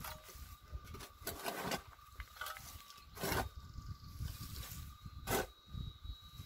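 A hoe scraping and chopping into dry, stony earth in a trench, about three strokes two seconds apart. A thin, steady cicada drone runs behind it.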